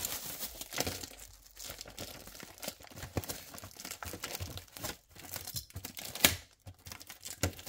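Clear plastic wrapping crinkling as it is pulled back off a display-case panel, in irregular crackles with a sharper crack about six seconds in.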